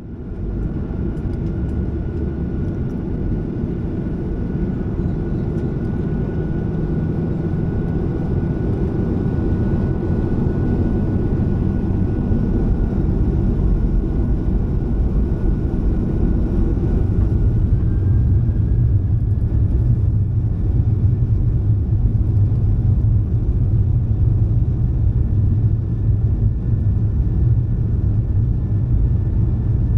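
Boeing 737-700's CFM56-7B engines heard inside the cabin from a window seat by the engine: a steady rumble with a thin whine. About two-thirds of the way in, the whine rises in pitch and the rumble grows louder as thrust comes up for the take-off roll.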